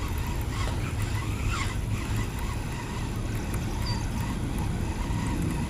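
Steady, fluctuating low rumble of wind buffeting the action camera's microphone, with a few faint higher chirps.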